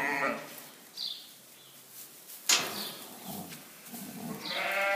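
Ewe bleating while a lamb is pulled from her during lambing: one call at the start and a longer one building near the end. A single sharp knock about halfway through, and faint high chirps every second or so.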